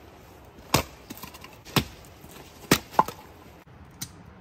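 Hatchet splitting firewood into kindling: three sharp chops about a second apart.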